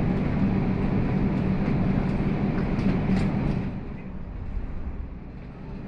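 Steady low rumble of a vehicle in motion, which drops in level about four seconds in.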